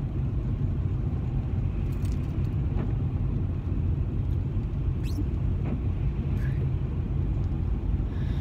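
Steady low rumble of a car's engine and tyres heard from inside the cabin while driving, with a few faint ticks.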